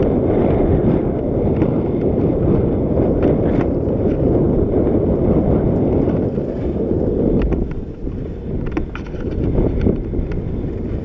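Mountain bike riding a dirt flow trail: wind rushing over the action camera's microphone together with tyre rumble on the dirt, broken by scattered sharp clicks and rattles from the bike, most of them in the second half.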